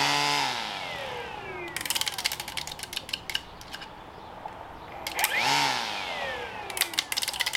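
Battery string trimmer's head-mounted motor triggered briefly twice, each time whining up in pitch and then winding down in a falling whine, followed by a run of rapid clicks as the head slows.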